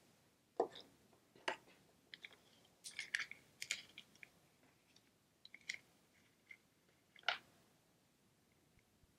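Plastic Easter egg shells and candy being handled: a scatter of faint, irregular small clicks and rustles, with a sharper click about seven seconds in.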